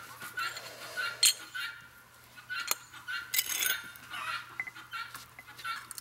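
Sharp metallic clinks of tongs against a metal muffin-tin casting mold, the loudest about a second in, with a couple more a little later. A quick, regular chirping, about three a second, runs underneath.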